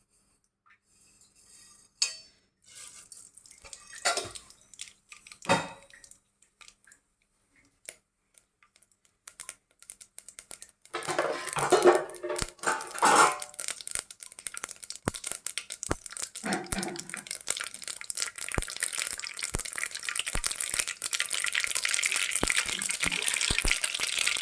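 A few knocks and clatters of a cooking pot and utensils, then mustard seeds spluttering in hot oil: a hiss that grows louder over the last several seconds, with many sharp pops of the seeds.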